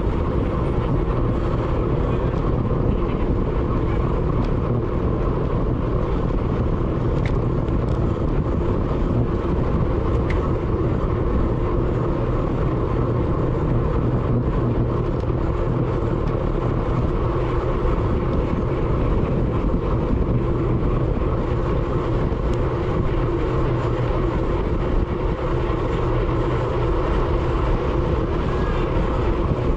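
Steady rush of wind and road noise on a bike-mounted action camera's microphone while riding at speed.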